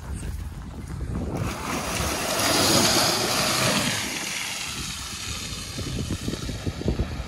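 Toyota RAV4 hybrid passing along a muddy track: a hiss of tyres through mud and puddles swells, is loudest about three seconds in, then fades as it moves away. Wind buffets the microphone throughout.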